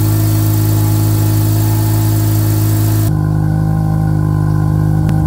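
Mazda RX-7 FD's 13B twin-rotor rotary engine idling steadily, first from the engine bay with a hiss over it, then, about three seconds in, at a slightly higher pitch from the exhaust end. The engine has a failed coolant seal, the fault behind the bubbling coolant and white exhaust smoke.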